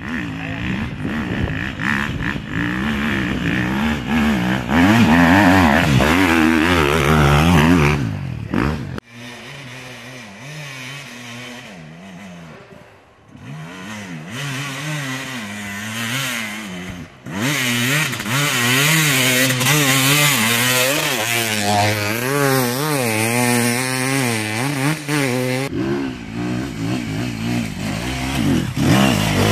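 Enduro dirt bike engines revving hard and unevenly on a steep hill climb, the pitch rising and falling with the throttle. The sound drops away abruptly about nine seconds in and comes back loud from about seventeen seconds.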